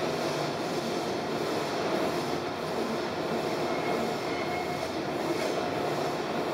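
Container freight train wagons rolling past on the rails, a steady rumble with a faint wheel squeal rising briefly about four seconds in.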